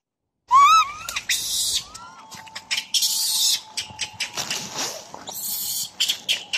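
A baby macaque giving a quick run of short, rising-and-falling cries about half a second in and another cry around two seconds in, with short bursts of rustling in between.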